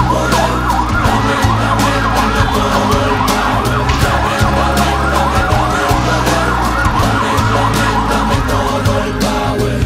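Siren wailing in a fast yelp, rising and falling about three times a second, over background music with steady bass notes; the siren fades near the end.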